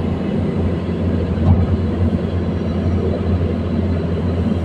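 Komatsu PC210-10 excavator's diesel engine running steadily under work, a constant low hum.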